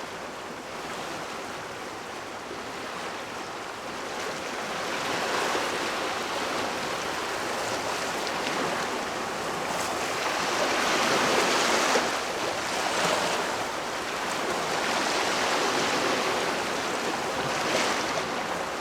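Water boiling: a steady rushing wash that swells louder about halfway through and eases again.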